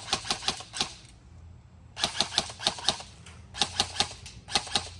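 Airsoft M4 rifle firing in short rapid bursts: about four strings of sharp clacking shots, around eight to ten a second, with brief pauses between them.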